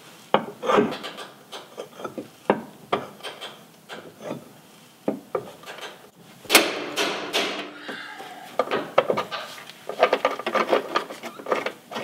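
Ratchet wrench with a pipe cheater bar loosening a rusted leaf-spring shackle bolt: irregular ratchet clicking and metal scraping as the nut is worked, with a sharp knock about six and a half seconds in.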